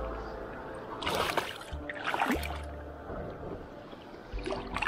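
Water splashing in short bursts, three times: about a second in, around two seconds in, and again near the end, with a faint steady tone underneath.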